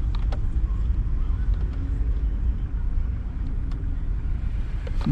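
Car road noise: a steady low rumble, with a few faint clicks.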